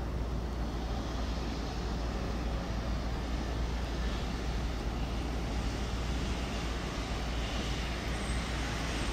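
E127 series electric train running, a steady rumble with a hiss over it and no distinct clicks or changes.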